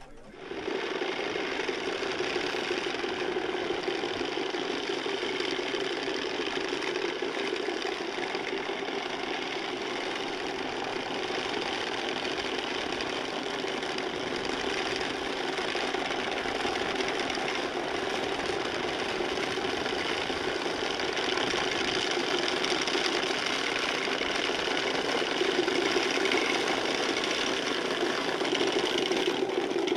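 Many wooden Easter rattles (Klappern) clattering together in a fast, dense, unbroken racket. This is the Holy Week rattling that stands in for the silent church bells.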